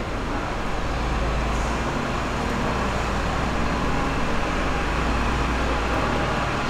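Steady city background noise dominated by a low traffic rumble.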